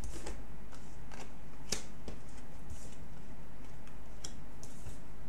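Cards being laid down and slid across a wooden tabletop: a handful of short, soft swishes and light taps, the clearest about two seconds in.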